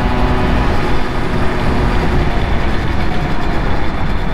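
Simson moped's two-stroke single-cylinder engine running under way, with heavy wind rumble on the helmet camera's microphone.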